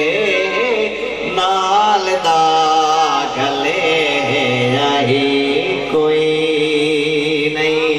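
Male naat reciter singing a long, drawn-out melodic line into a microphone over the hall's sound system, over a steady held drone at a few fixed pitches.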